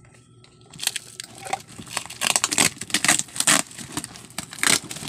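Packing tape ripped off a cardboard box and the cardboard flaps pulled open, in irregular rasping and crackling bursts that start about a second in.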